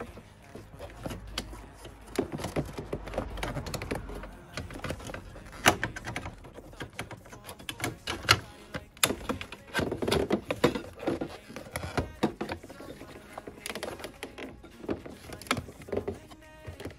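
Hands working loose plastic trim and parts in a Volkswagen Golf 7's engine bay: irregular clicks, knocks and rattles of hard plastic, several sharper snaps among them.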